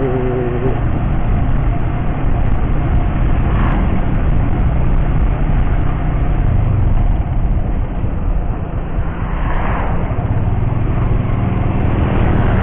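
Motorcycle engine running at a steady riding speed, with a steady low rumble of wind and road noise.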